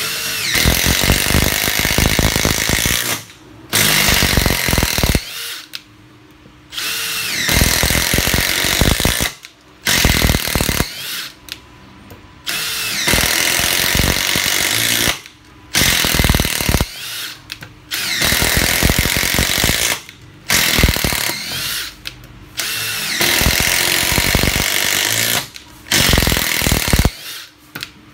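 Makita XDT13 18V brushless cordless impact driver driving 7 cm screws into a wooden beam, its impact mechanism hammering in about ten runs of one to three seconds each, with short pauses between.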